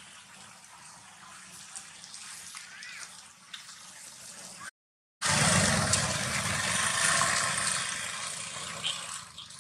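Faint outdoor background noise, then, after an abrupt cut about five seconds in, a loud, even rushing hiss that slowly fades.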